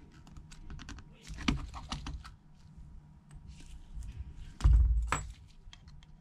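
Light clicks and taps of small metal hand tools and tiny screws while an iPhone XR's battery bracket is unscrewed and lifted out, with one louder thump about three-quarters through.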